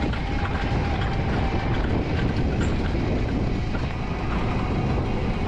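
Wiegand alpine coaster sled running down its tubular steel rails, heard from on board: a steady rumble and rattle of the wheels on the track. A faint steady whine runs through the first two seconds.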